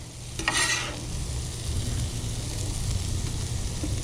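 Food sizzling on a Blackstone propane griddle, with a scrape about half a second in, over a low steady rumble.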